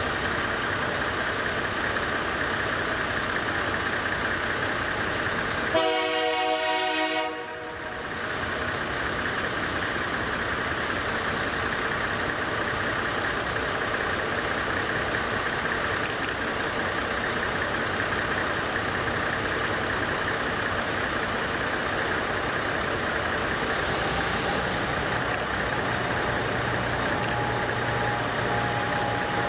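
A diesel locomotive sounds one horn blast of about a second and a half, about six seconds in, over the steady running of idling diesel engines. Near the end a low engine hum grows as a locomotive draws closer.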